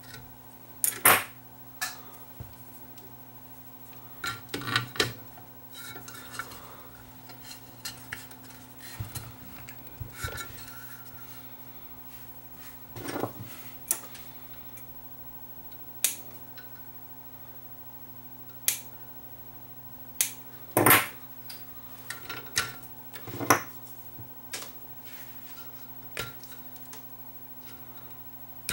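Scattered sharp metallic clicks and clinks of small hand tools and wire being handled inside a vintage radio's steel chassis, the loudest about a second in and again around 21 and 23 seconds in. A faint steady low hum runs underneath.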